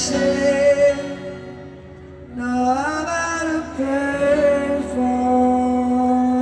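Live pop-rock concert music heard through a fan's phone: sung notes over the band drop away briefly about a second in. The singing comes back with an upward slide and ends on a long held note.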